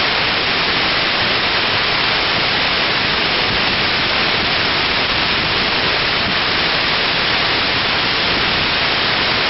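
Kuwanoki Falls, a waterfall: falling water giving a steady, unbroken rush.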